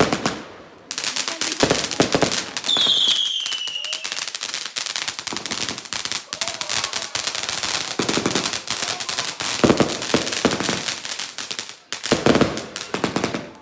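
Fireworks going off in a dense, rapid run of crackling bangs lasting about eleven seconds, with a falling whistle about three seconds in. A shorter burst of bangs follows near the end.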